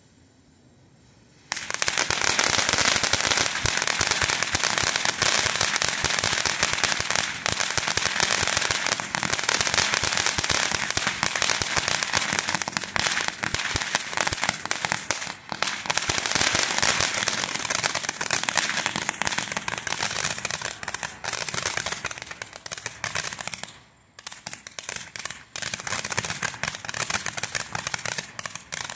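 Winda Fireworks 'Dancing with Ghosts' fountain firework crackling: a dense, rapid crackle that starts abruptly about a second and a half in and keeps up, breaking off briefly near the end before starting again.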